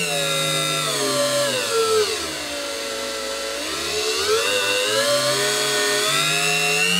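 Blue hand-held rotary multitool running with no load, mounted in a lathe toolpost grinder and spinning its small grinding point. Its whine drops steadily in pitch over the first few seconds as the speed dial is turned down, then rises back up to full speed.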